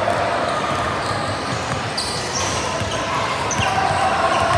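Basketball game noise on an indoor court: a ball bouncing on the floor amid steady background voices.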